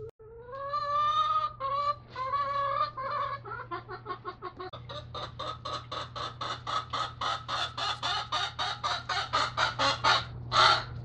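A vocal hen cackling: a few drawn-out calls, then rapid clucks about four a second, ending in one loud squawk near the end.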